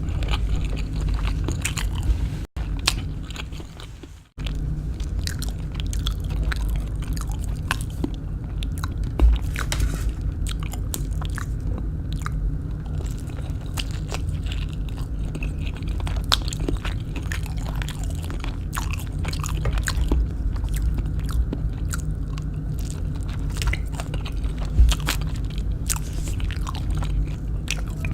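Close-up chewing and crunching of kwek kwek, deep-fried batter-coated quail eggs: many sharp crunchy clicks over a steady low rumble. The sound cuts out briefly twice near the start.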